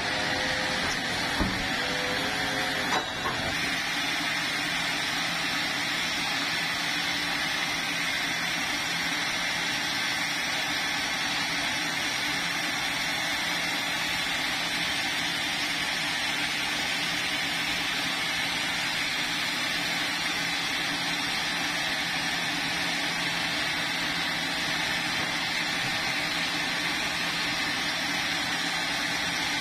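Sawmill machinery running steadily, a continuous even mechanical noise from the saw rig's motor and blade, with a couple of small knocks in the first three seconds.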